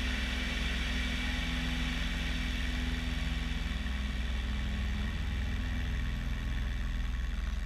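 Bellanca Decathlon 8KCAB's 150 hp Lycoming four-cylinder engine and constant-speed propeller running steadily at climb power during a power-on stall, with air rushing past the microphone.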